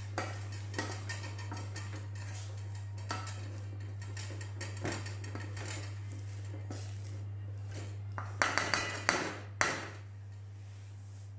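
Potato masher crushing boiled potatoes in a stainless steel saucepan: soft, irregular knocks of the masher against the pan, then a quick run of several louder metal clanks on the pan near the end.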